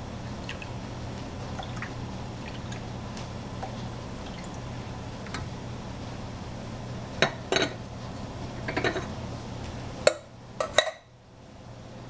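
Milk trickling and dripping from a metal saucepan into glass jars, then several sharp metal clinks as the pan is knocked against a steel pot, the loudest two near the end.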